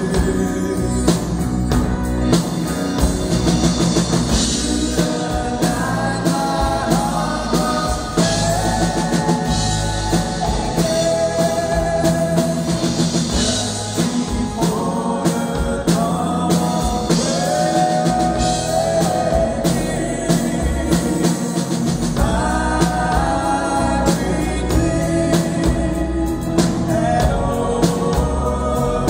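Live band performing a song: a male lead vocal sung over electric and acoustic guitars and a drum kit, heard through the hall's PA.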